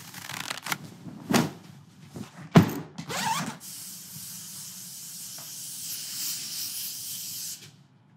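Yellow rubber gloves pulled on with a few snaps and a sharp thump, then an aerosol spray can hissing steadily for about four seconds before cutting off sharply.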